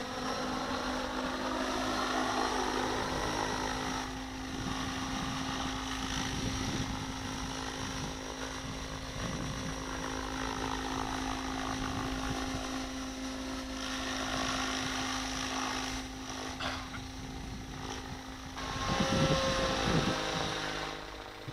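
Radio-controlled model helicopter flying aerobatics: its rotor and motor whine sweeps up and down in pitch as it manoeuvres, loudest a couple of seconds before the end.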